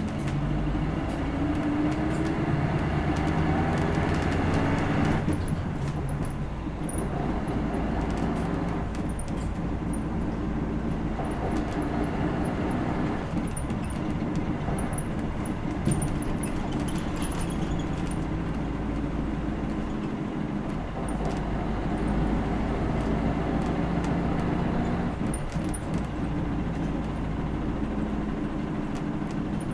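A 2001 city bus's diesel engine under way, heard from inside the cabin. It rises in pitch as it accelerates over the first few seconds, drops sharply about five seconds in at a gear change, then runs on steadily with road noise.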